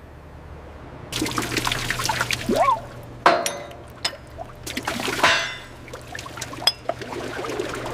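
Liquid trickling and pouring, broken by a few sharp knocks; the liquid drains off as a salvaged part is set down.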